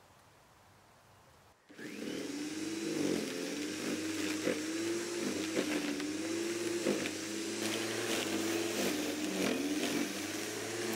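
Corded electric lawnmower switching on about two seconds in, then running with its motor pitch sagging and recovering again and again as it bogs down in grass far too long for it to handle, with scattered ticks among the hum.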